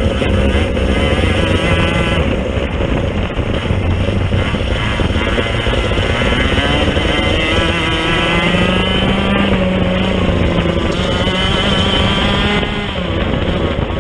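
Racing go-kart engine running hard at high revs, heard from on board the kart, with the kart ahead close by. The engine pitch climbs about halfway through as it accelerates, and it briefly eases off near the end.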